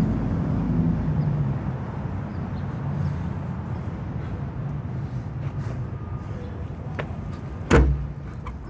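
Low traffic rumble fading over the first second or so. About three-quarters of the way through, one loud thud of feet landing a box jump on a low block.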